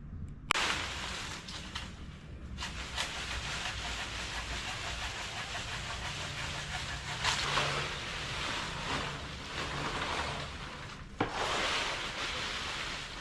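Dry mango leaves and a plastic bag rustling and crinkling as leaves are stuffed into the bag by hand, in uneven swells, with a sharp knock about half a second in and another near the end.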